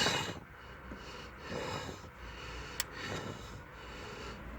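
A man breathing hard in several heavy breaths as he strains on a torque wrench tightening a cylinder head bolt, with one sharp click a little past the middle.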